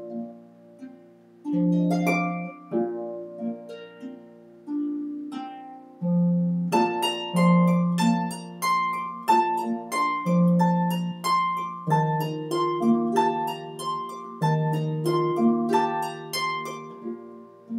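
Solo harp: plucked notes ring and fade over low bass notes. The playing is sparse at first, then turns into quicker, fuller runs of notes from about six seconds in.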